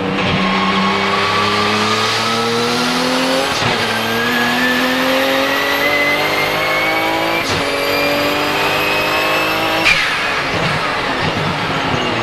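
Porsche 997 GT2 RSR's 3.9-litre twin-turbo flat-six accelerating hard under full throttle. Its pitch climbs, drops at sequential-gearbox upshifts about three and a half and seven and a half seconds in, then climbs again, with a high turbo whistle above it. About ten seconds in it lifts off with a sharp burst, and the engine note falls away.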